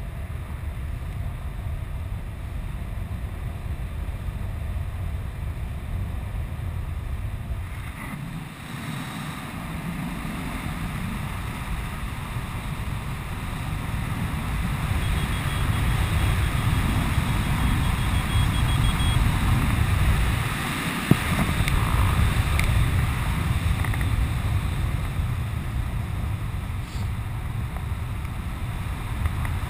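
Wind rushing over a helmet camera's microphone while flying under an open skydiving canopy, a low buffeting roar that grows louder about halfway through. One sharp tap stands out about two-thirds of the way in.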